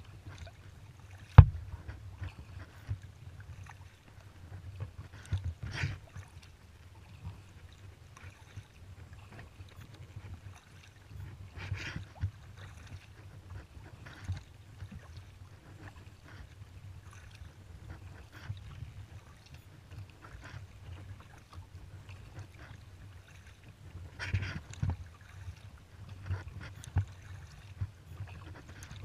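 Kayak paddle splashing as the blades dip into the water at irregular intervals, over a steady low rumble. One sharp knock comes about a second and a half in.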